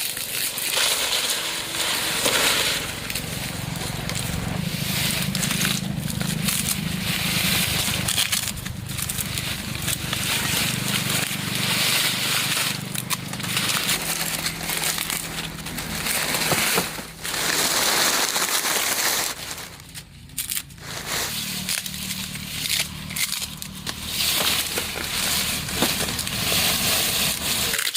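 Continuous crackling and rustling, full of small snaps, with a brief lull about two-thirds of the way through.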